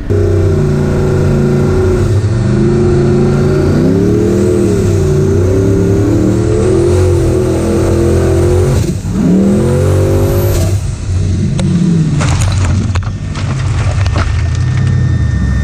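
Formula Offroad buggy engine heard from the onboard camera, revving hard with its pitch rising and falling and dropping sharply twice as the throttle comes off. Near the end there is a short clatter of knocks, then the engine runs at a steadier, lower note.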